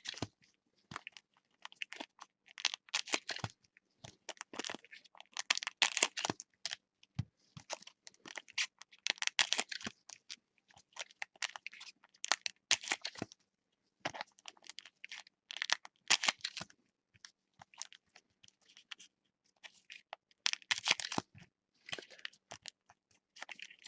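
Crinkling and tearing of foil trading-card pack wrappers and handling of the cards, in irregular crackly bursts.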